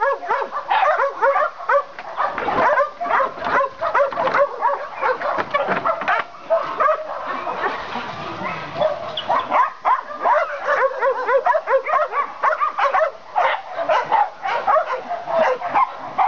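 Many kenneled dogs barking at once, short overlapping barks with no let-up, easing a little about halfway through before picking up again.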